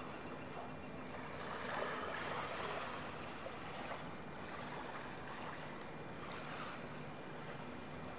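Steady outdoor ambience of wind and river water washing on a sand shore, with a faint low steady hum underneath.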